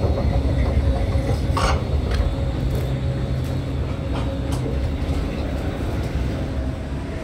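Deep, steady rumble of escalator drive machinery at the top landing, slowly fading as the walker moves away, with footsteps on the metal landing plate and then the hard floor.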